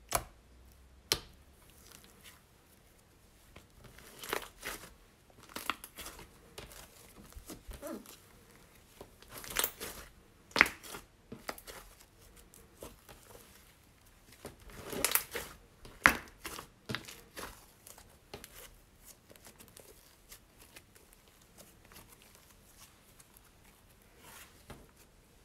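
Pink shaving-foam slime, restored with activator, being pressed, poked, stretched and folded by hand. It gives irregular sticky crackles and clicks, with louder stretching bursts about 4, 10 and 15 seconds in.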